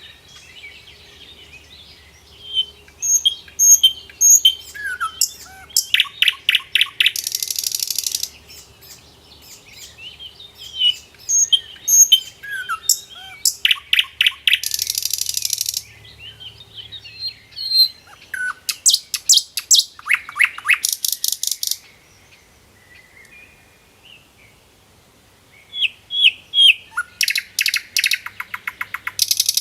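Songbirds chirping and calling, with loud, fast trills of many quick notes every few seconds and softer chirps in between. There is a lull of a few seconds about two-thirds of the way through.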